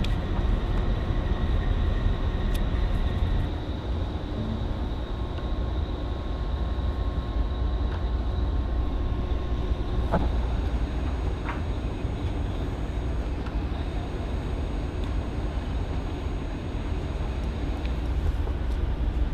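Steady low rumble of a ship under way on an open deck, with faint steady machinery tones over it. A couple of faint knocks come about ten seconds in.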